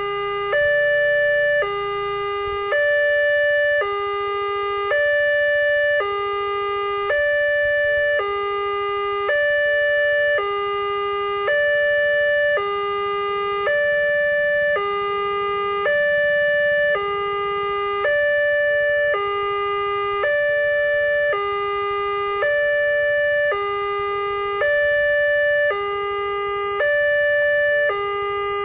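Railway level-crossing warning alarm sounding: an electronic two-tone signal alternating between a higher and a lower tone, each held about a second, repeating steadily as the crossing is closed for an approaching train.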